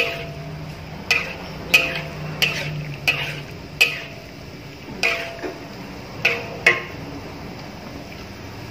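Long metal spatula stirring in a large metal cooking pot, knocking against the pot about ten times at an uneven pace, each knock with a short metallic ring; the knocking stops about seven seconds in.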